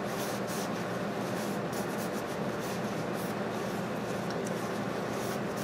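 Paper towel rubbing against a small-engine piston as gloved hands wipe it clean, soft scratchy friction over a steady low hum.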